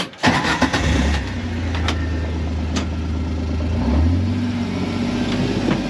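Kawasaki Mule Pro FXR side-by-side's engine running at low speed while it crawls along a rocky trail, with the engine note rising about four seconds in. A couple of sharp knocks sound over it.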